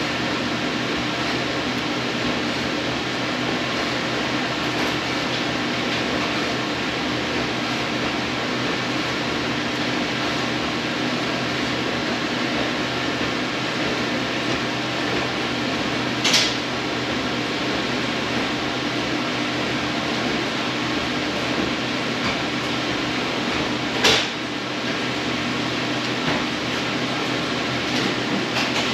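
Steady whooshing ventilation fan noise with a faint hum, broken twice by a short sharp click or rustle, about halfway through and again some eight seconds later.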